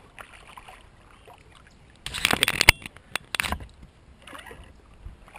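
Noises from a small fishing kayak being handled: a loud rush of noise about two seconds in, ending in a sharp knock, then another click and a shorter burst.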